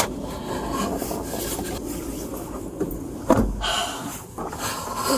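Rustling and rubbing as a person shifts about in a car seat in a puffer coat, with a dull thump about three and a half seconds in.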